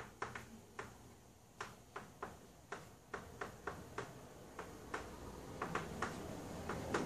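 Chalk tapping and clicking against a blackboard as equations are written: a run of sharp, irregular clicks, about two or three a second, coming closer together near the end.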